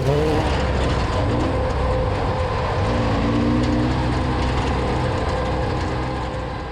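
Desert off-road race car's engine running steadily, growing fainter near the end.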